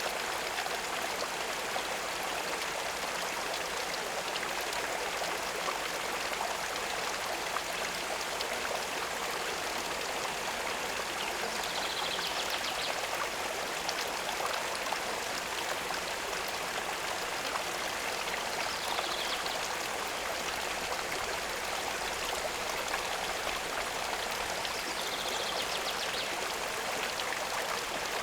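Steady running water, an even rushing trickle with no pauses. A short high chirp sounds over it three times, about 12, 19 and 25 seconds in.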